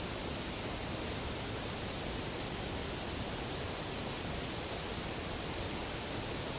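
Steady, even hiss of background noise with no knocks, howls or other distinct sounds.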